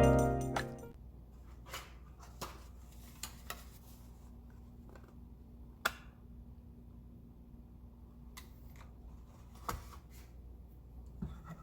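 Background music fading out, then sparse light clicks and taps of small objects being handled over a low steady hum, the sharpest click about six seconds in.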